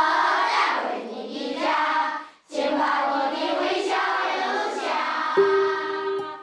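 A class of schoolchildren singing together in chorus, in two phrases with a brief pause about two seconds in. Near the end a single steady note is held.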